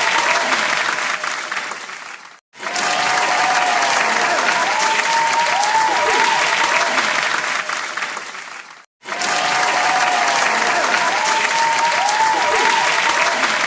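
Crowd applause sound effect: dense clapping with some cheering voices over it. The clip fades out and cuts to a brief silence twice, about two and a half and nine seconds in, then starts again at full level each time.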